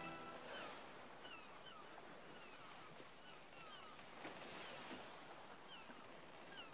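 Faint open-water ambience, soft lapping and washing of water, with scattered short bird chirps throughout.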